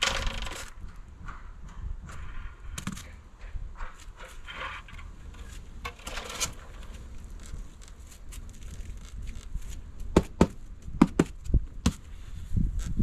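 Scattered scrapes and rustles of handling work, then a run of five or six sharp knocks about ten seconds in.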